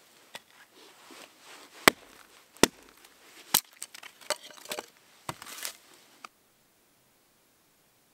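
Hatchet chopping and splitting a small stick into kindling on a wooden log: about six sharp, separate chops with some scraping of wood between them.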